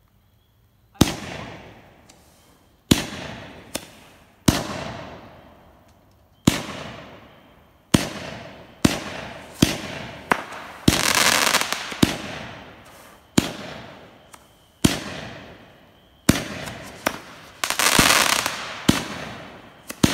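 A 200-gram aerial firework cake firing its coloured shells: a string of sharp bangs starting about a second in, spaced half a second to two seconds apart, each dying away. Twice a dense crackling hiss lasts about a second.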